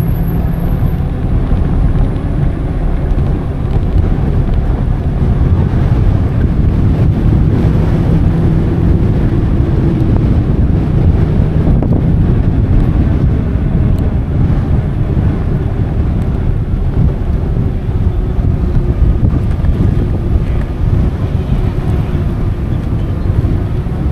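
Wind buffeting the microphone of a moving e-bike, a steady, loud low rumble throughout.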